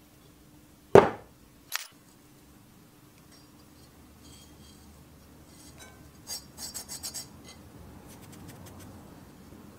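Rusty cast iron pan and lid handled on a tabletop: one loud knock about a second in and a lighter click just after. Later comes a quick run of small metal scrapes and clinks as the rusted lid is worked against the pan.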